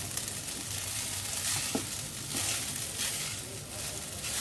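Boiled rice sizzling in ghee and butter in a nonstick pan while a silicone spatula stirs it. The spatula strokes swell the sizzle in a rhythm of about one every half second.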